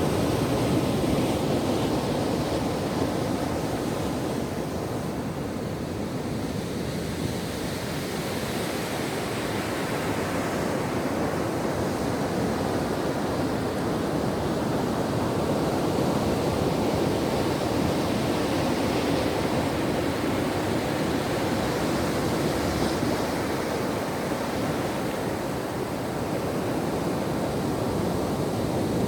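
Ocean surf washing continuously onto a shore, a dense rushing noise that slowly swells and eases in loudness.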